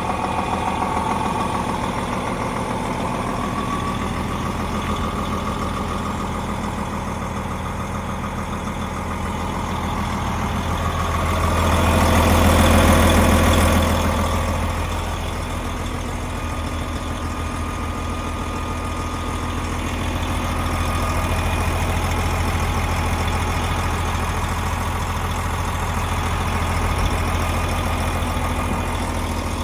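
DAF XG 480 truck's PACCAR MX-13 diesel engine idling steadily. It swells louder for a couple of seconds about twelve seconds in, then settles back to a steady idle.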